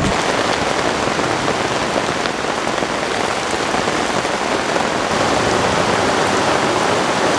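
Heavy rain falling steadily on grass, puddles and foliage: a dense, even downpour.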